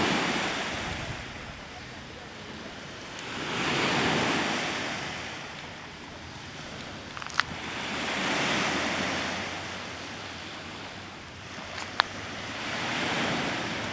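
Small waves washing onto a pebble beach, each wash swelling and fading about every four to five seconds. Two short sharp clicks, one about halfway through and one near the end.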